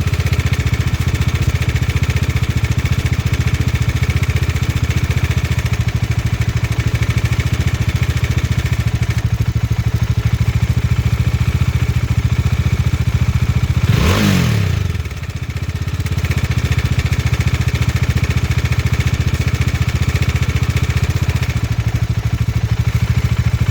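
Bajaj Dominar 400's single-cylinder engine idling, with one quick throttle blip about two-thirds of the way through. This is its engine noise with a worn cam chain tensioner that has play in it.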